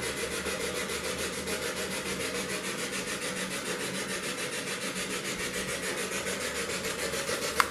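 Spirit box sweeping through radio stations: an even hiss of static chopped into rapid, regular pulses several times a second. A short click sounds near the end.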